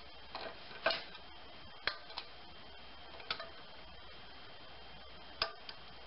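Scattered light metal clicks and clinks, about seven in six seconds, as a large open-end wrench is fitted onto the camshaft and the timing chain and sprocket are handled on a GM 2.2L Ecotec engine. A faint steady high tone runs underneath.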